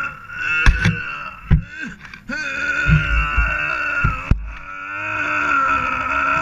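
ATV engine running hard at high revs. The throttle eases off about two seconds in, then again just after four seconds, and the engine pulls steadily again each time. A few short low thumps sound over it.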